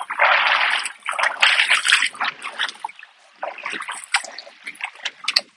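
Shallow seawater splashing and sloshing around the bamboo poles of an oyster rack, in irregular bursts that are loudest in the first three seconds and weaker after.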